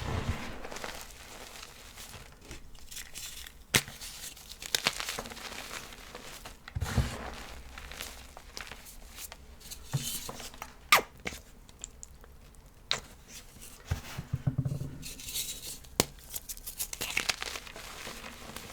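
Small chunks of reformed gym chalk being crushed and crumbled: irregular gritty crunching with a few sharp snaps as pieces break.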